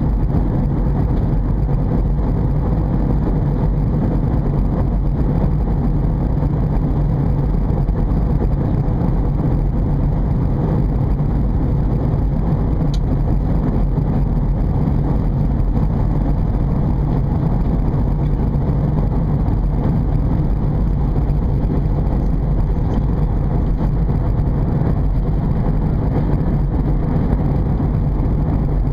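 Steady low rumble inside an Airbus A320 passenger cabin: engine and airflow noise while the airliner descends.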